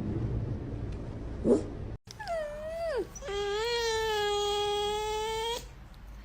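A pet animal wailing. About two seconds in, a wavering cry falls in pitch, then turns into a long, steady, drawn-out wail lasting about two seconds. Before it there is a low rumble with one short rising squeak.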